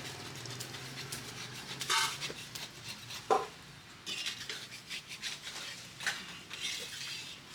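Scattered clinks and scrapes of cooking utensils on pans, with a louder scrape about two seconds in and a short knock a little after three seconds.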